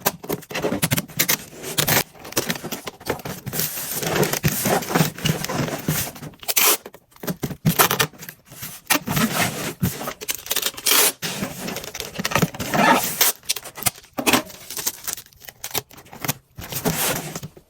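Hands handling packing materials while packing a mannequin: irregular scraping, rubbing and crinkling with a few brief pauses.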